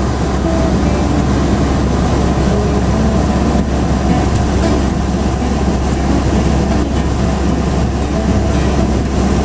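Steady drone of a small single-engine plane's piston engine and propeller, heard from inside the cabin in level flight.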